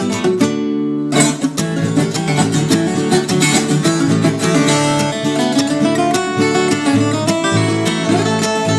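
Viola caipira music: plucked and strummed steel strings playing continuously, with a held chord that gives way to a fresh strum about a second in.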